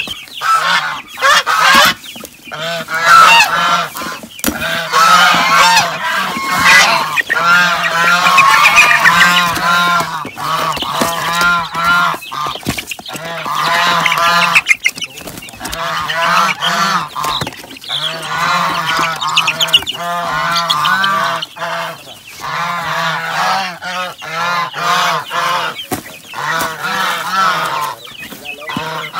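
A boxful of young native × Rhode Island Red chickens peeping loudly, many short arched calls overlapping without pause, with the odd knock of cardboard among them.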